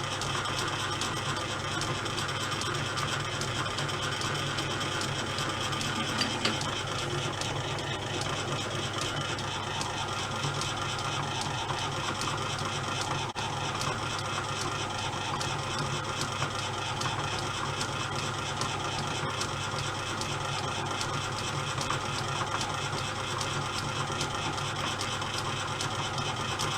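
Pittler C3 lathe from around 1895 running under power, its gearing giving a steady whirr laced with fast, fine clicking.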